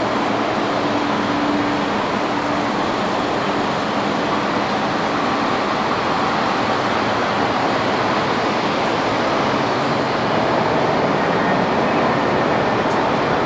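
Boeing 777-200LR's GE90 jet engines running at low taxi power: a steady, even rushing drone.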